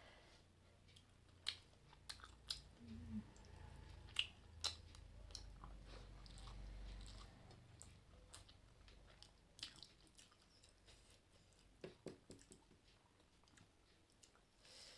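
Faint close-up chewing and mouth sounds of someone eating rice and curry, with scattered wet clicks and smacks.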